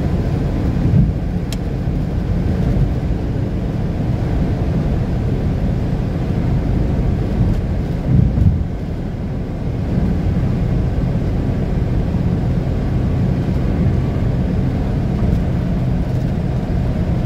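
Engine and road noise heard inside a moving vehicle's cab: a steady low rumble, with a brief louder bump about eight seconds in.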